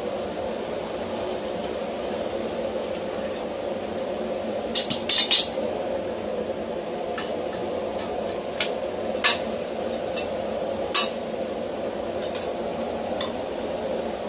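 Sharp metallic clinks of steel tools being handled at a bench vise while a hot wrench eye is twisted with a large adjustable wrench. There is a quick cluster about a third of the way in, then single loud clinks a second or two apart, over a steady background hum.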